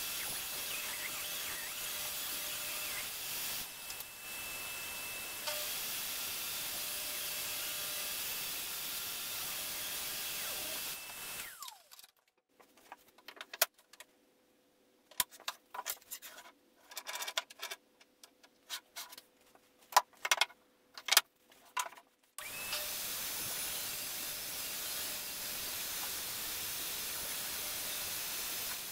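DeWalt jobsite table saw running with its dust-extraction hose, a steady hiss. It stops about 11 seconds in; there follows near quiet with a series of sharp wooden clacks as plywood pieces are handled, and the saw runs again from about 22 seconds on.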